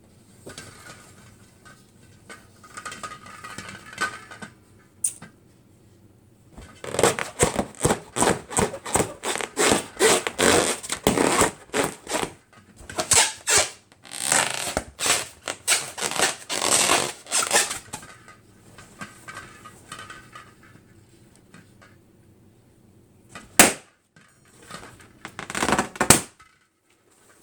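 Rubber party balloons being handled and popped: long runs of rapid sharp crackling and squeaking in the middle, then a single sharp pop near the end and a short burst of crackling after it.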